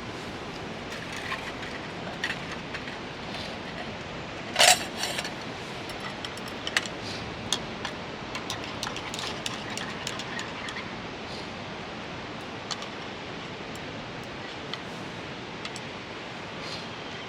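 Scattered small clicks, clinks and knocks of items being handled, with one louder knock about four and a half seconds in and a quick run of light ticks after it, over a steady hiss.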